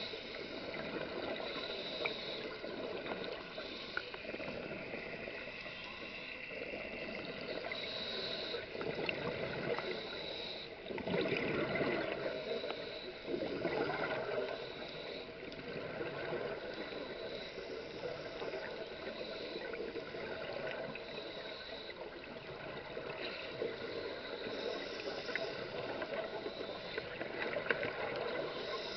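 Underwater sound of scuba diving: bubbles from divers' regulators gurgling steadily, with two louder surges of bubbling a little before and after the middle.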